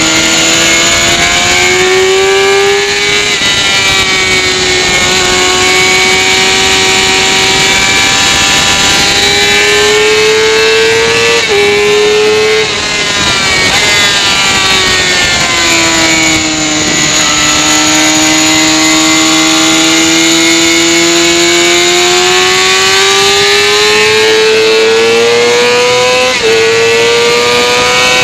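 Motorcycle engine at high revs on track, its pitch climbing under acceleration, falling off through a corner and stepping sharply at gear changes about 11 seconds in and again near the end. Heavy wind rush on the microphone runs under it.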